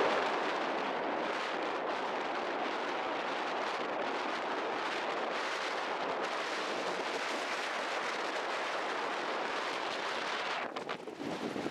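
Strong wind: a steady, even rushing hiss with no pitch or rhythm, which drops away about a second before the end.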